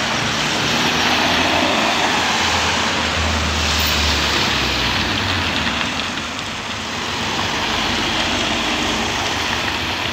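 Cars driving past on a city street: steady tyre and engine noise, with a low engine hum swelling a few seconds in as one car goes by.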